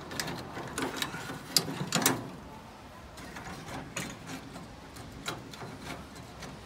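Small metal clicks and scrapes from a screwdriver working the rusty screw out of a gas grill burner, the clicks coming thick for the first two seconds and then more sparsely.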